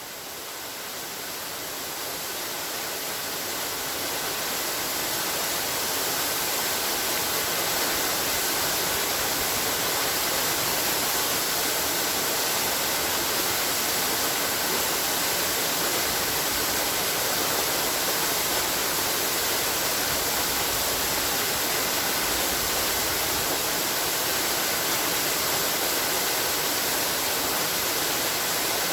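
Waterfall: a steady rush of falling water. It fades in over the first few seconds, then stays level.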